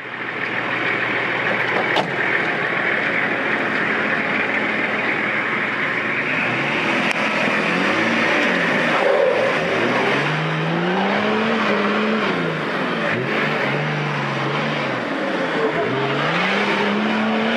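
Off-road 4x4's engine running steadily under load, then revving up and down repeatedly from about seven seconds in.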